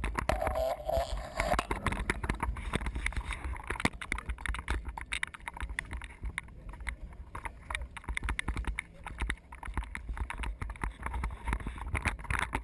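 A low steady rumble with many sharp, irregular clicks and knocks.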